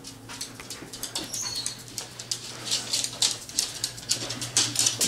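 Claws of two Norwegian Elkhounds clicking on a hardwood floor as they walk, an irregular patter of ticks that gets busier after about two and a half seconds.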